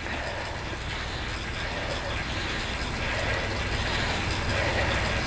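Indoor bike trainer and drivetrain whirring steadily as the rider spins at high cadence under a hard effort, gradually getting louder.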